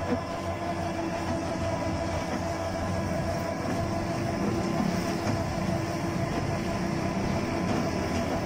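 Converted electric auto-rickshaw with a 48 V 800 W motor and shaft drive, running along a rough street as heard from inside the cabin: a steady motor whine over a rumbling, rattling ride.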